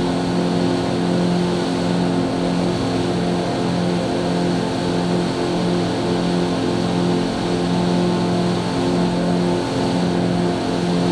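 Yamaha outboard motor running steadily at planing speed, its even engine tone under a broad rush of water spray and wind from the boat moving fast across flat water.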